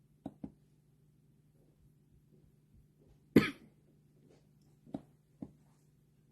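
A single cough about halfway through, loud and short. A few light clicks or taps come before and after it over a faint steady hum.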